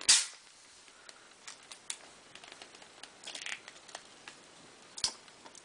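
Clear plastic iPod touch packaging being opened by hand: one sharp plastic snap right at the start, then a few small clicks and a short scraping rustle as the clear lid slides off the box base, and another click near the end.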